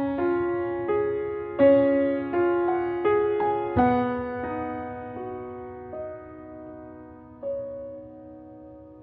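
Soft background piano music: gentle melodic notes that ring and fade, busier in the first few seconds and thinning to a few sparse notes near the end.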